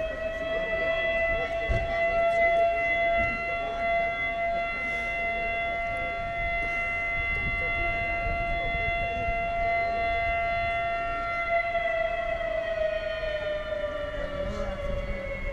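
Warning siren sounded before a chimney blast demolition, holding one steady tone and then sliding down in pitch over the last few seconds as it winds down.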